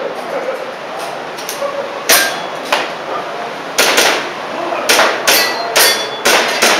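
Airsoft pistol firing a string of sharp cracks, irregularly spaced, with a pair of shots coming close together several times and most of the shots in the second half.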